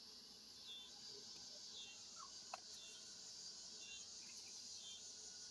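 Faint, steady high-pitched chirring of crickets, with one small click about two and a half seconds in.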